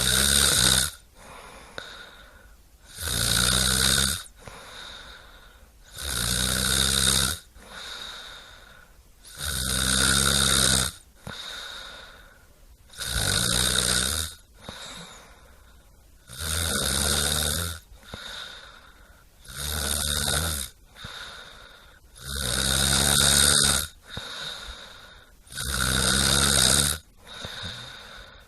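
Snoring in a steady rhythm: a loud snore about every three seconds, each lasting about a second, with quieter breaths between.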